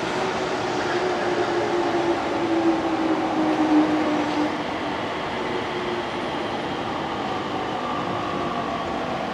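Yamanote Line electric commuter train running through the station, a steady rumble with a motor whine that falls slightly in pitch over the first few seconds.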